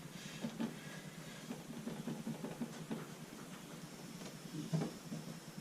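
Faint, scattered light clicks and taps from handling the Can-Am Spyder's plastic side storage lid and its new hinge, over a low steady hum.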